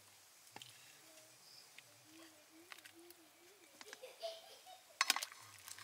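A ladle knocking and scraping in an aluminium pot of boiled corn cobs as the cobs are lifted out into a clay pot: a few scattered light clicks, then a short burst of sharp clatter about five seconds in. A faint voice murmurs in the background.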